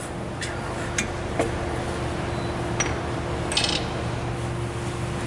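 A few light, sharp metallic taps and clinks on a disc-brake caliper: a hammer tapping the old, rusted caliper to work it loose from the rotor, with a short cluster of clinks about three and a half seconds in, over a steady low hum.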